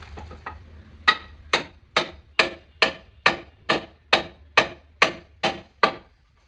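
Hammer blows on wood in carpentry work: two light taps, then about a dozen steady strikes a little over two a second, each with a short ring.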